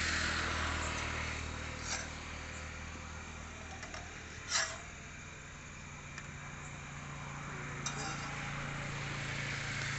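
A metal spatula clinking a few times against a large iron cooking pan, the sharpest clink about halfway through, over a steady low hum and faint hiss.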